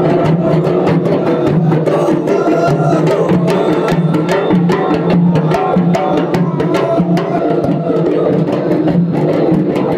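Traditional Emirati ayyala music: a row of large double-headed hand drums beaten in a steady, quick rhythm with hand clapping.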